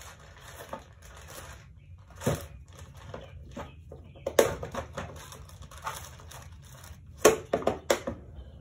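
Crinkling and rustling of handled packaging, broken by sharp clicks and knocks, as pennies are fetched. The loudest knocks come about halfway through and in a quick cluster near the end.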